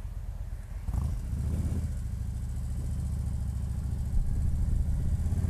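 Harley-Davidson touring motorcycle's V-twin engine pulling away. It gets louder about a second in and keeps building as the bike speeds up.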